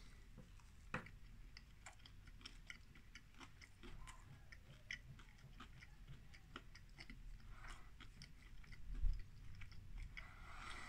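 A person biting into and chewing a cooked meat-free streaky bacon rasher, faint, with many small soft clicks of the mouth. There is a single low bump near the end.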